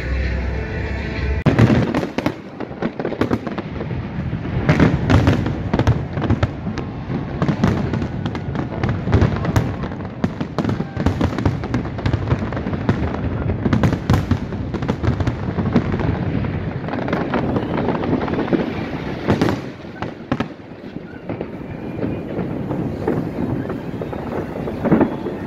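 Aerial fireworks going off in rapid succession: a dense, continuous stream of bangs and crackles, with several louder reports standing out. Music plays briefly before the fireworks begin about a second and a half in.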